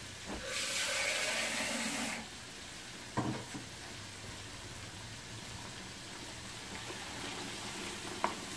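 Chicken pieces frying in a pan of hot oil, a faint steady sizzle. A louder rushing hiss starts about half a second in and cuts off after under two seconds, and there is a short knock a little after three seconds.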